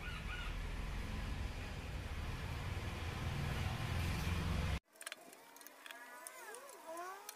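A steady low rumble of outdoor noise that cuts off abruptly about five seconds in, leaving quieter ambience with a few short rising and falling chirps and faint clicks near the end.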